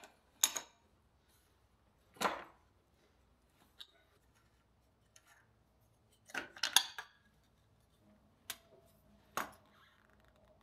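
Scattered metal clicks and clanks of a hand wrench working on a bicycle's handlebar fittings, loosening the mounting bolts. There is a short scrape about two seconds in and a quick cluster of clicks about six to seven seconds in.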